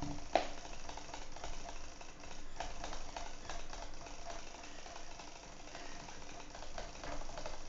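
Rapid, irregular clicking of a computer mouse button being hammered for a click-speed test, several clicks a second, with one sharper click about half a second in.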